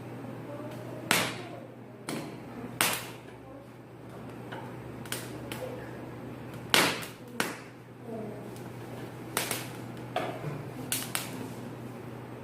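Fresh corn cob roasting over a gas stove flame, its kernels giving off sharp, irregular crackles and pops, about one a second, over a steady low hum.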